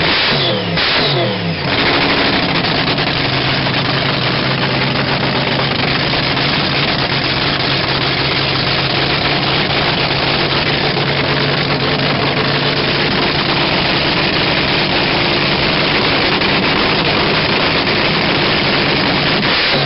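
Supercharged Daimler Hemi V8 dragster engine running on nitromethane, very loud. It is revved in the first two seconds with the revs falling away, then settles into a steady idle.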